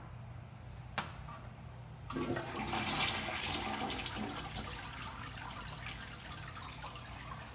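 A restroom fixture flushing: a sharp click about a second in, then water rushes through just after two seconds, loudest around three seconds and slowly easing off.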